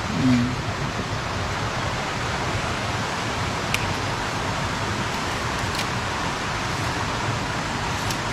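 Steady rushing of a small stream flowing over stones, even throughout, with two faint clicks about four and six seconds in.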